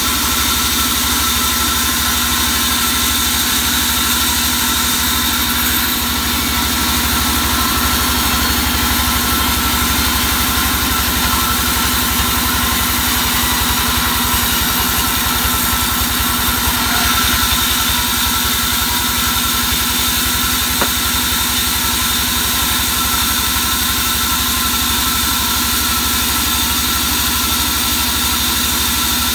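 Sawmill band saw running while a log slab is fed through the blade: a continuous, even machine drone with a steady high whine over it.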